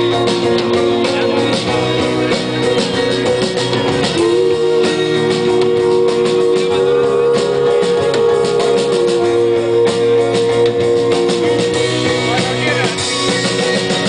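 Live rock band playing: acoustic guitar, electric guitar and drum kit together, with long held notes of several seconds each over the accompaniment.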